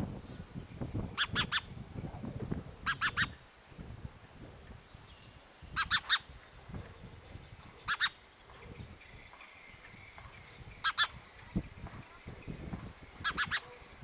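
House sparrow chirping: short chirps in quick groups of two or three, repeated every two to three seconds. A low rumble runs under the first few seconds.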